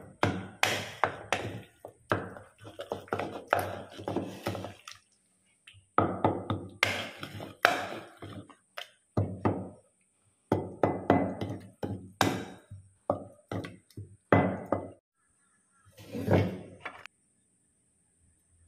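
Wooden pestle pounding soft eggplant chili paste in a clay mortar: dull thunks, several a second, in runs of a few seconds with short pauses between them.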